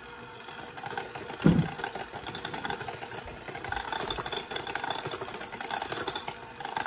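Electric hand mixer running steadily, its beaters whisking a liquid batter of egg, oil, sugar and mashed banana in a glass bowl. There is one dull knock about a second and a half in.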